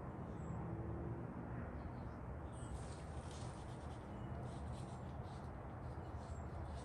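Faint, irregular light scraping and clicking of hand-handled metal tools or engine parts, starting a couple of seconds in, over a steady low hum.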